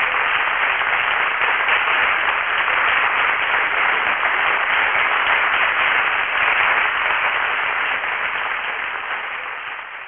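Audience applauding, a steady wash of clapping that fades out over the last couple of seconds.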